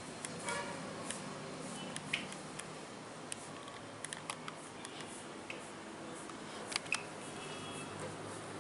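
Hands massaging a bare back, heard as scattered sharp clicks and light pats over a steady background hiss, with a double click about seven seconds in.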